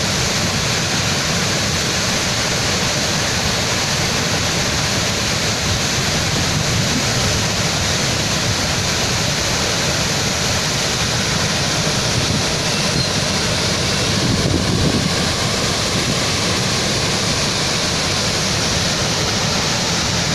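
Waterfall pouring with a loud, steady rushing noise that does not change.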